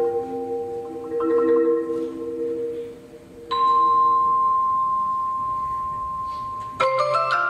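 Marimbas played with mallets in a slow, quiet passage: low held chords, a short hush, then one high note held for about three seconds, and a sharp struck chord near the end.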